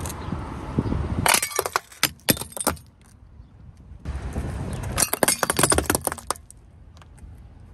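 A painted ceramic mask cracking and shattering under a car tyre: a quick run of sharp cracks, then about four seconds in a second, longer run of shards crunching and clinking.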